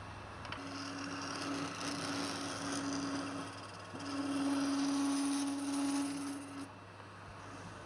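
Wood lathe running with a steady hum while a turning tool cuts the spinning wood, giving a hissing cut with a steady tone that comes and goes in about four passes. The longest and loudest pass comes about halfway through.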